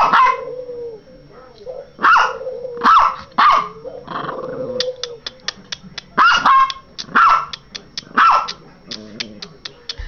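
Maltese dog barking in short, sharp yaps, about seven in all. Quick light clicks come between the barks in the second half.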